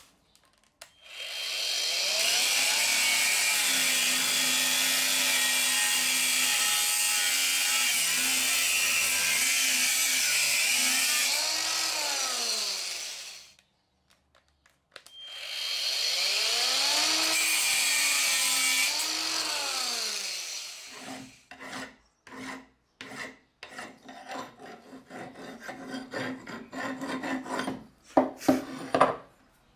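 Angle grinder with a cut-off disc spinning up and cutting into a steel bolt held in a vise, then winding down; this happens twice. After that come hand-file strokes rasping on the steel, getting louder near the end.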